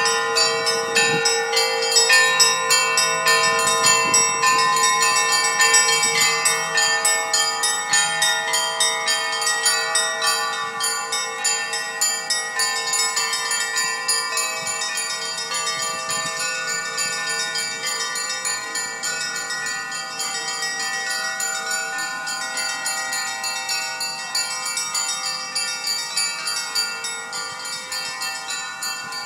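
Orthodox church bells ringing: quick, closely spaced strikes over the sustained tones of the bells, gradually growing quieter.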